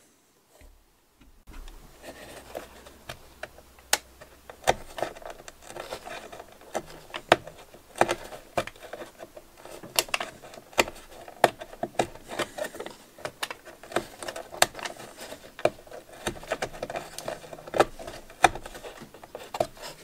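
Knife tip prying and scraping a freshly cut oak ring blank loose from its block: many irregular small clicks and scratches of steel on wood.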